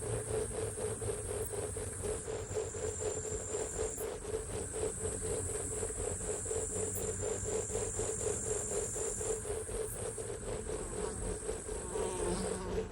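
Insects calling: a steady high-pitched trill over a lower, rapidly pulsing buzz.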